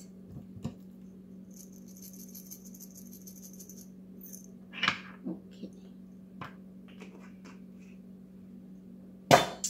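Ground pepper being shaken from a small metal shaker: a fine, rapid rattle lasting a couple of seconds, then a few light taps, and one loud knock near the end, all over a faint steady hum.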